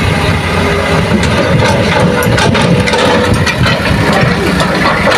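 Diesel engines of a hydraulic excavator and a loaded light dump truck running together as the truck pulls away, a dense low rumble with a steady whine and scattered clatter in the middle.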